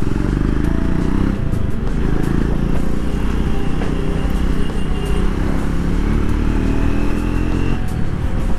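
Triumph 400X's single-cylinder engine pulling on the move, its pitch climbing steadily through a gear, with drops in pitch at gear changes about a second in and near the end.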